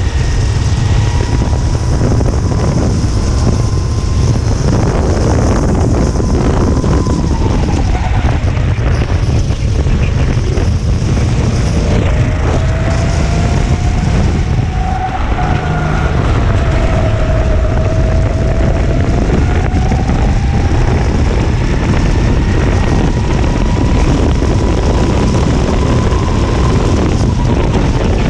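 Racing kart engine running hard, its pitch falling and rising several times as the throttle comes off and back on, with heavy wind buffeting on the onboard microphone.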